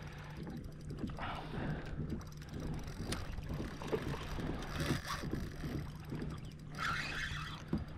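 Kayak sounds during a fight with a hooked fish: water moving against the hull, light wind on the microphone, a steady low hum, and small clicks from the spinning reel and rod handling, one sharp click about three seconds in.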